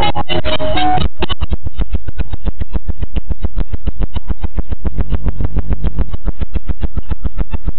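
Loud, bass-heavy electronic music. About a second in, the melody drops out, leaving a fast, even beat over a deep bass line that shifts around five seconds in.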